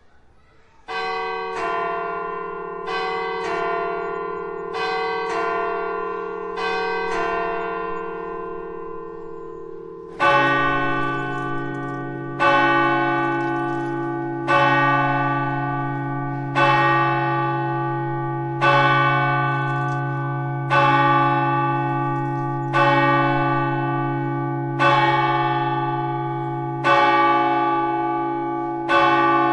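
Church bell striking the hour of twelve. About a second in, a higher-pitched bell rings a run of quicker strokes. Near ten seconds a deeper bell takes over, striking evenly about every two seconds, with each stroke ringing on into the next.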